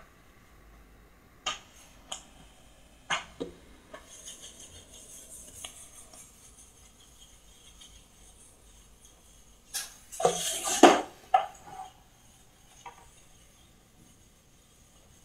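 Household objects knocking and clattering as they are handled on a hard kitchen countertop: a few light knocks in the first few seconds, then a louder run of clatter about ten seconds in.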